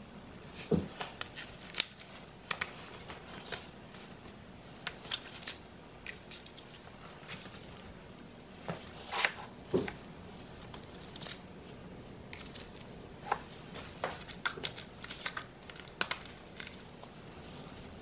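A Kydex knife sheath and its belt clip being handled: scattered sharp plastic clicks and scrapes, irregular and unevenly loud, as the sheath is worked on a belt with the knife seated in it.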